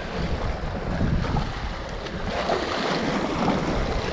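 Sea surf washing against the rocks, with wind buffeting the microphone; the wash swells a little past halfway through.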